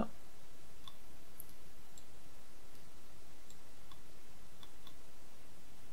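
A few faint, scattered computer mouse clicks over a steady background hiss.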